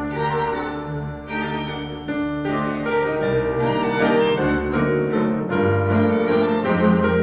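Classical music with bowed strings and piano, played back through Yamaha NS-1000MM three-way speakers.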